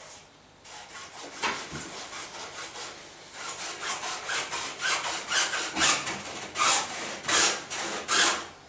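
Hand saw cutting through PVC pipe in quick back-and-forth strokes, about three a second, growing louder from about a third of the way in.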